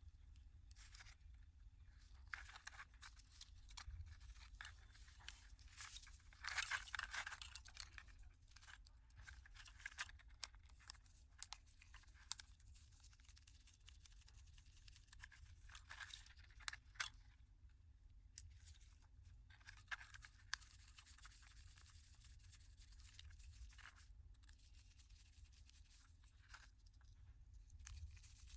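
Faint hand-work on an old remote control helicopter: irregular scraping and tearing strokes mixed with small sharp clicks, coming in short spells with pauses between.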